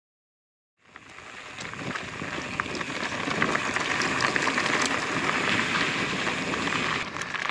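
Mountain bike tyres rolling over loose gravel and rock, a dense crackle of small stones mixed with wind buffeting the microphone. It fades in about a second in after a short dropout.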